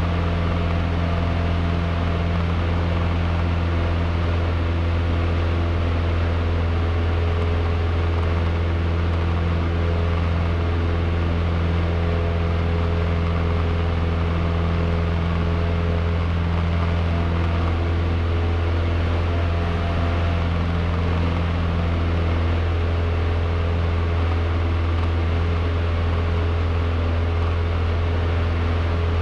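Cessna 152's four-cylinder Lycoming engine and propeller running steadily during the climb after takeoff, heard inside the cabin as an even drone.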